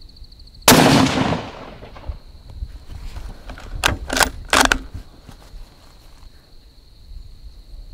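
A single shot from a Ruger American Ranch bolt-action rifle in 5.56 NATO, with an echo that dies away over about a second. About three seconds later come three quick metallic clicks as the bolt is worked to chamber the next round.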